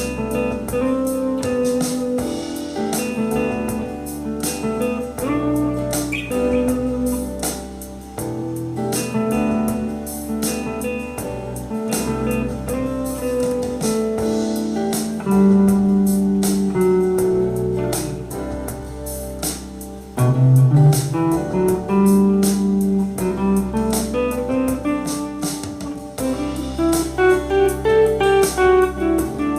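Electric guitar playing a lead passage in E minor over a backing track with a steady drum beat, with runs of notes climbing in pitch near the end.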